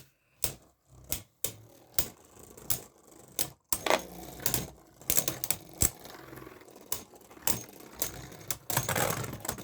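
A Beyblade Burst battle: the spinning tops, one of them the Wizard Fafnir Ratchet Rise 1S combo, clash and rattle against each other in a plastic stadium. It makes a run of sharp, irregular clacks and knocks, a few to several a second, over a steady spinning hum.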